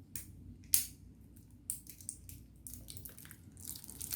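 AA batteries being fitted into the battery compartment of an Instax Mini 9 instant camera: a sharp plastic click under a second in, then lighter clicks and handling noise.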